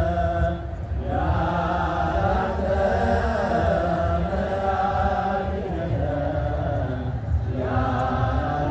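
Large choir of Ethiopian Orthodox Sunday school students chanting a hymn together, phrase after phrase, with a short break about a second in and another near the end.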